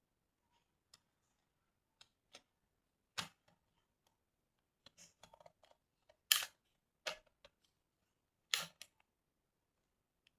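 Scattered sharp mechanical clicks and knocks from handling a Cosina 35 mm SLR film camera, about a dozen at uneven spacing, the loudest a little past six seconds in and again about eight and a half seconds in.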